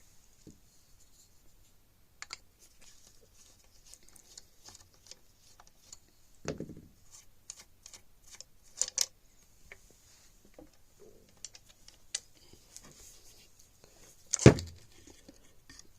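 Scattered clicks and knocks of a Marlin Model 80 bolt-action rifle being handled and taken apart to reach its trigger group, with a duller thump about six seconds in, a few sharp clicks a little later and the loudest knock near the end.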